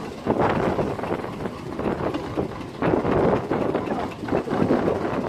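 Wind buffeting the microphone in uneven gusts, a rushing noise that surges louder about a third of a second in and again near three seconds.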